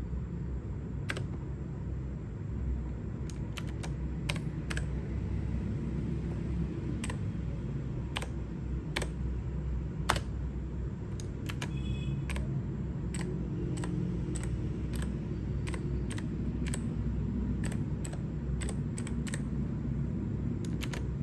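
Clicky blue mechanical key switches on an AOC GK-230 keyboard pressed one at a time, single sharp clicks at irregular spacing about once or twice a second, over a steady low hum.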